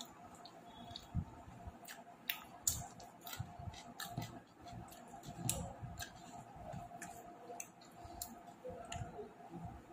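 Quiet eating sounds: irregular small clicks and smacks of chewing, several times a second, over a faint steady hum.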